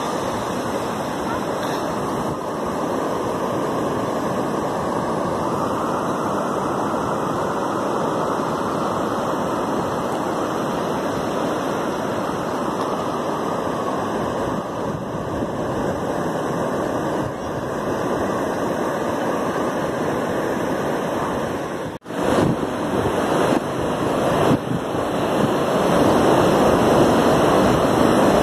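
Ocean surf breaking and washing up the beach: a steady rush of waves. It drops out for a moment about three-quarters of the way through, then comes back louder.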